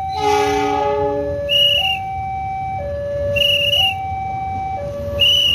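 Railway level-crossing warning alarm sounding two alternating tones, switching about once a second. A diesel locomotive's horn blows for about a second and a half at the start. Short shrill whistle-like chirps come every couple of seconds.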